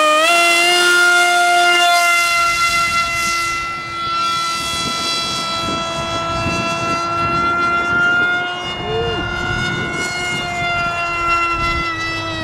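Electric motor of a foamboard FF-117V2 RC plane running at high throttle in flight: a steady, high-pitched whine holding one pitch, with wind rumbling on the microphone underneath.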